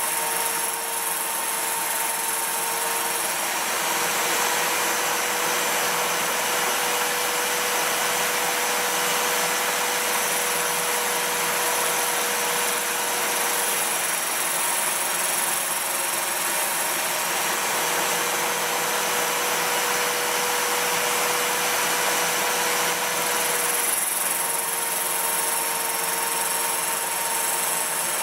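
Homemade centerless grinder running continuously, its wheel grinding metal with an even hiss over a steady motor hum.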